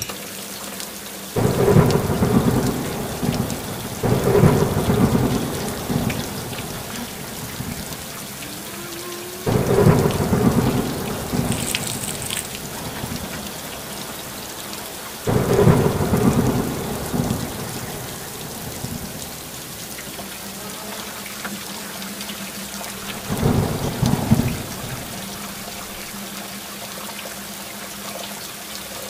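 Steady rain with rolling thunder: about five long, low rumbles a few seconds apart over the constant hiss of the downpour.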